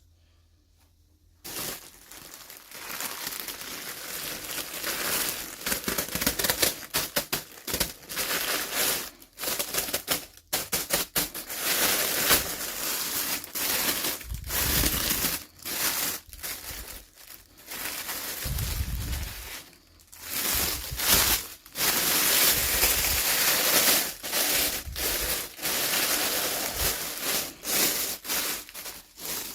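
Toy packaging crinkling, rustling and tearing as it is handled and opened, in irregular bursts with short pauses, starting about a second and a half in.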